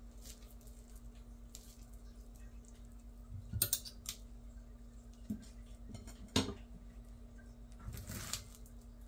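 Metal spoons clinking against a glass mixing bowl and being set down on a plate: a few sharp clinks a little after three seconds in, a single clink about six seconds in, and a short scraping clatter near the end, over a faint steady hum.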